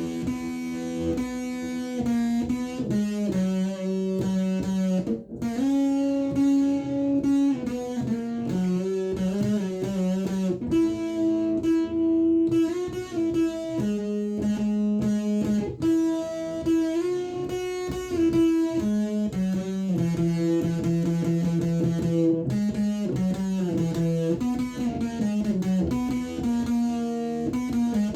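Electric guitar played through a Behringer Super Fuzz pedal, improvising a solo of long held notes that change every second or two, some bent in pitch. Picked up by a phone some way from the amplifier.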